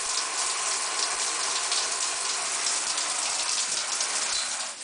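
Shower head running, its spray hissing and splashing onto the tiled shower walls and floor; the water sound stops near the end.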